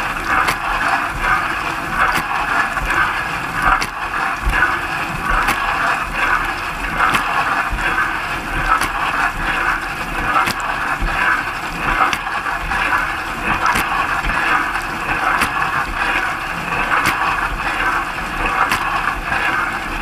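Dishwasher mid wash cycle heard from inside the tub: water jets from the spray arms spattering steadily over the dishes and racks. A faint tick recurs about every second and a half.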